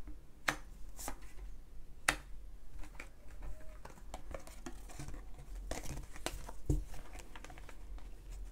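Tarot cards being handled on a table: irregular crisp snaps, flicks and taps of card stock, some sharper than others, over a low steady hum.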